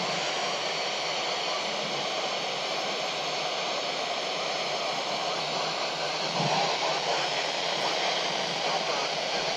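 Steady FM receiver hiss from a Kenwood dual-band handheld radio tuned to 145.800 MHz, the space station's voice downlink, with no clear signal yet coming through. It gets slightly louder from about six and a half seconds in.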